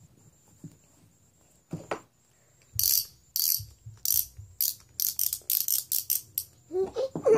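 A small hand-held toy shaken in a run of about a dozen quick rattling shakes that come faster and shorter as they go, after a single soft knock.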